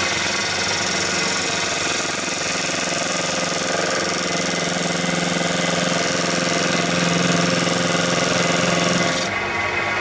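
VFD-driven wood lathe running steadily while a thin parting tool cuts into the spinning wood, a hissing cut over the steady hum of the lathe. The cutting hiss stops suddenly about nine seconds in, leaving the lathe running.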